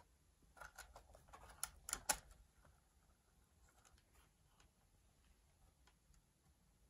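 A quick run of small clicks and taps from fingers handling the projector's circuit board, its power button and plastic wire connectors, loudest about two seconds in, followed by a few faint ticks amid near silence.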